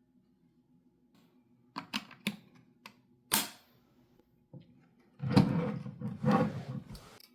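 Handling noise: a few sharp clicks and taps, then about two seconds of louder rustling and scraping.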